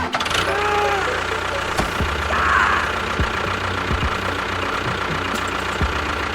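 A small motor running steadily: a continuous mechanical hum and rattle with a few low knocks scattered through.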